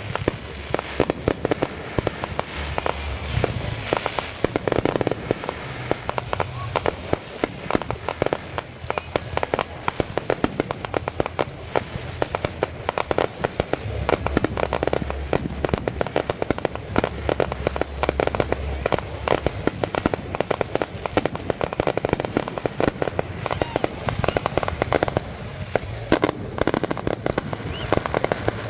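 Fireworks display going off in rapid, continuous volleys of bangs and crackling, with several short falling whistles.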